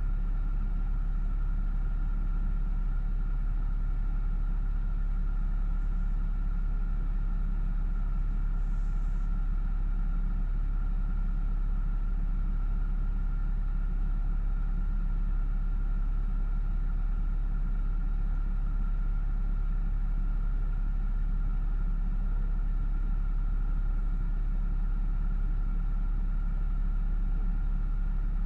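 Car engine idling steadily, heard from inside the parked car's cabin as an even low rumble with a faint steady higher hum.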